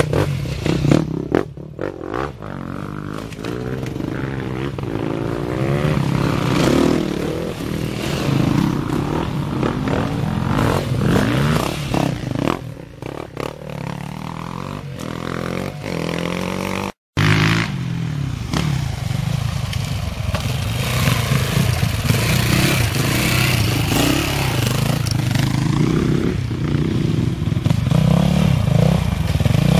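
Enduro dirt bike engines revving up and down, their pitch rising and falling repeatedly, with clattering of wheels over stones. The sound drops out for a moment about 17 seconds in.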